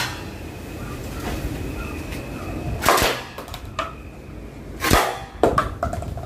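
Battery-powered M4A1 gel blaster firing single shots, two sharp snaps about two seconds apart, a few seconds in. Just after the second come a few light knocks as a hit paper cup topples on the glass table.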